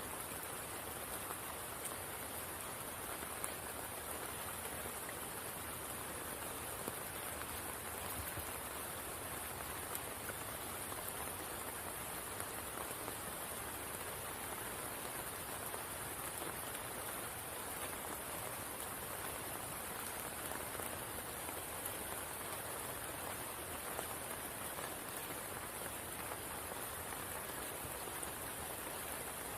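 Steady rain falling on the pool of a spring: a continuous even hiss with scattered single drops ticking through it.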